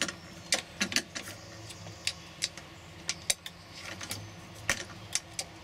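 Crow's bill pecking and tapping at a wooden and plastic puzzle contraption: a dozen or so sharp, irregular clicks and knocks.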